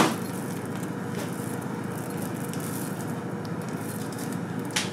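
Dry rolled oats trickling from a container into a ceramic bowl on a kitchen scale, a steady soft rustle. A sharp tap at the very start and another short one near the end.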